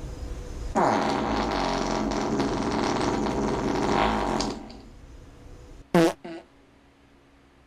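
A long, loud fart lasting almost four seconds, starting about a second in. Two brief sharp sounds follow about six seconds in.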